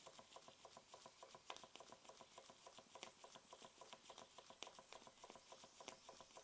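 Stevens Model Dockyard single-cylinder horizontal model steam engine running under steam: a faint, quick, even beat from each stroke, with a sharper tick about every second and a half.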